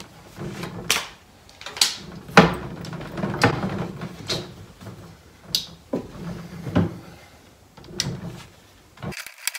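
Cabinet door being fitted onto its hinges: about nine irregular knocks and clicks as the door and hinge are pushed and wiggled into place, with handling rustle between.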